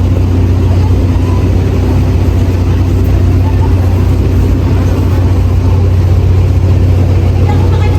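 Steady, loud, low engine rumble of city road traffic, unbroken throughout.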